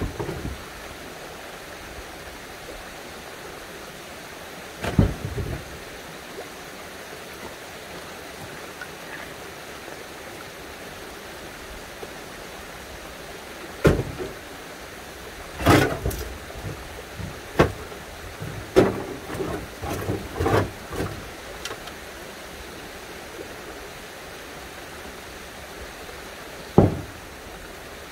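Steady rush of running water from a spring, with scattered sharp knocks of fieldstones clacking together as they are handled, most of them bunched between about halfway and three quarters of the way through.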